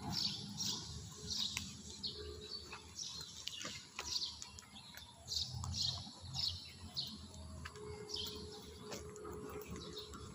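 A bird calls over and over with short, high chirps that fall in pitch, about one a second, over a steady low rumble.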